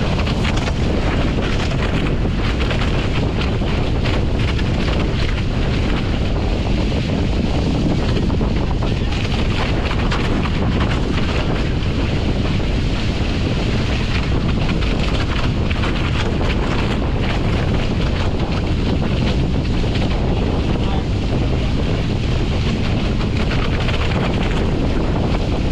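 Steady wind buffeting the camera microphone on a Nacra F15 catamaran under sail, with water rushing and hissing along the hulls.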